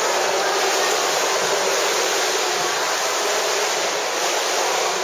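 Steady splashing and water wash of a swimmer doing butterfly stroke, heard in a reverberant indoor pool hall.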